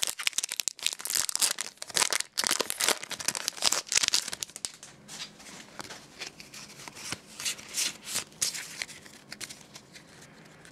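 Foil Pokémon card booster pack wrapper being torn open and crinkled. The crinkling is loud for about the first five seconds, then turns to quieter scattered crackles.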